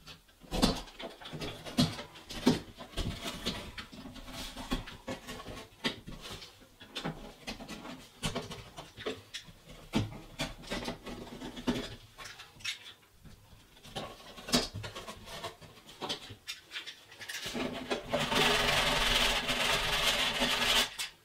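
Scattered scraping and clicking of a utility knife cutting loose chunks out of a masonite hollow-core door's skin around a small hole. For the last three seconds or so, a sanding sponge is rubbed steadily and hard over the spot, louder than the cutting.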